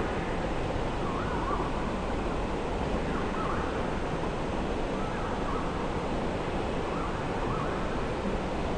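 Steady rush of flowing river water, with a bird faintly repeating a short call every second or two.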